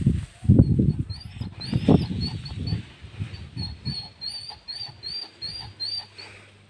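Irregular low thuds and sloshing, loudest in the first two seconds, with a small bird chirping over and over, about twice a second, through the second half.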